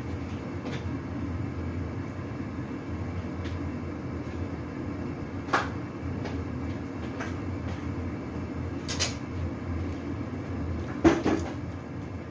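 A steady low hum with a few sharp knocks: one about five seconds in, one about nine seconds in, and the loudest about eleven seconds in.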